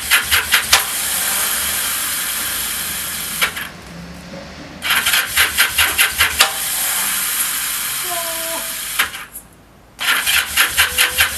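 Kawasaki Z750 twin's air-cooled parallel-twin engine started on its electric starter three times. Each time a quick run of pulses turns into a steady run, which cuts off suddenly about three seconds later.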